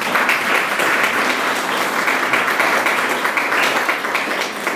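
Audience applauding: a steady patter of many hands clapping together.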